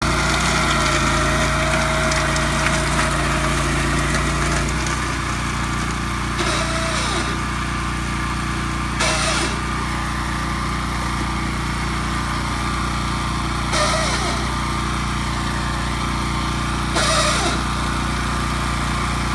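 Grillo 110 two-wheel tractor running with its transmission grinding; the note drops about five seconds in, and a harsh grating burst recurs every few seconds. The grinding is the sign of a transmission fault, probably a bad bearing.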